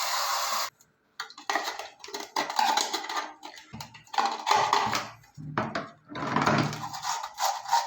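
Water hiss that cuts off a little under a second in, then irregular clattering, clicking and scraping of the plastic parts of a concealed flush tank's float valve assembly as they are handled and cleaned.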